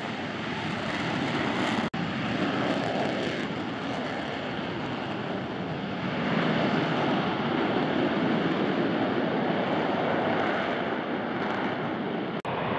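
F-35B Lightning II jet engine running in a hover with its lift fan engaged, a steady, loud jet noise. It cuts out for an instant about two seconds in and again near the end.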